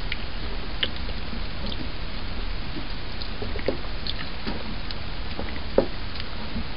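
A slotted spoon stirring thickening cornmeal mash in a stainless steel stock pot: wet sloshing and squishing with scattered light knocks of the spoon against the pot, the loudest near the end, over a steady background noise.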